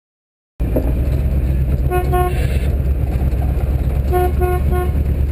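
Vehicle engine running with a steady low rumble while a horn gives two short toots, then three more about two seconds later.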